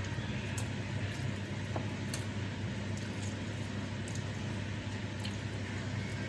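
Close-up eating sounds: chewing and fingers gathering and pressing cooked rice on a tray, heard as a few faint soft clicks and squishes over a steady low hum.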